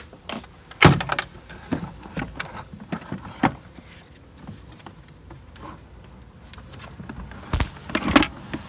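Clicks and knocks of hands working the plastic intake plenum loose on a Chrysler 2.7 V6 engine: scattered sharp knocks, the loudest about a second in and two more near the end.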